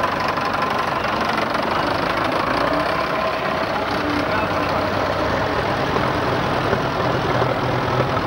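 Vintage tractor engines running steadily as the tractors drive slowly past close by, led by a blue Fordson Major diesel.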